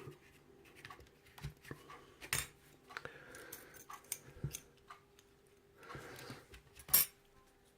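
Small metal tools and a pinning tray being handled and set down on a bench: scattered light clinks and clicks, the sharpest about seven seconds in.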